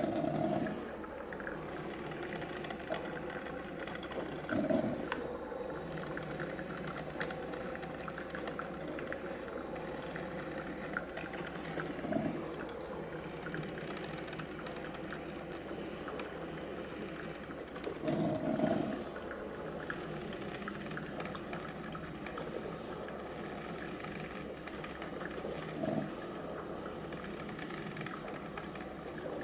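Pensonic coffee maker brewing: a steady hiss of heating water, broken by five brief louder spurts of boiling water spaced several seconds apart.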